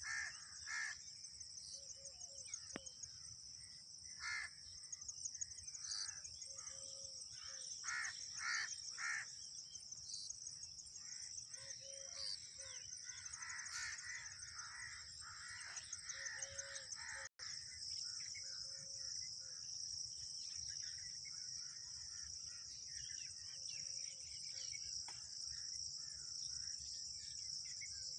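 Insects droning in a steady high-pitched buzz, with birds giving short repeated calls over it, most often in the first half.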